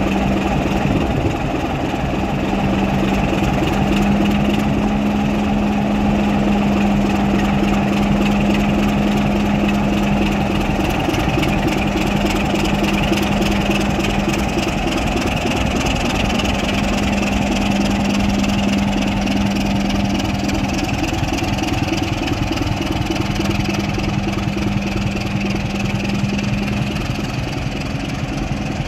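BR Class 27 diesel locomotive 27050, its Sulzer six-cylinder engine running with a steady note as it slowly pulls its train out of the platform.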